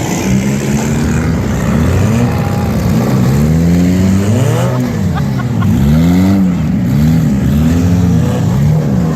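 Demolition derby cars' engines revving, several at once, their pitch repeatedly rising and falling over one another.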